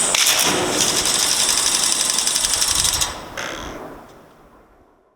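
DJI S1000 octocopter's rotors making a rapid, regular mechanical clatter in a failed first flight. About three seconds in the noise drops off suddenly and the motors wind down into silence.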